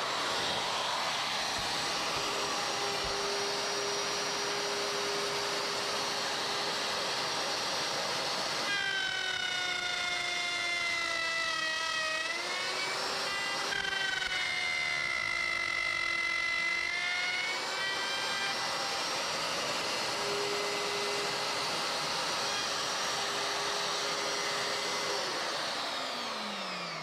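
Handheld electric router running and cutting along a template edge with a steady high whine; in the middle its pitch sags and recovers as the bit takes load. Near the end the motor is switched off and winds down, the pitch falling away.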